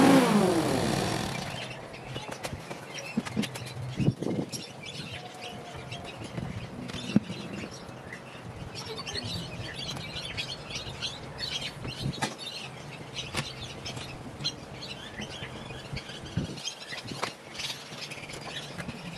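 Small birds chirping steadily, with scattered light knocks and clicks. In the first second or so an engine's pitch drops and it fades away.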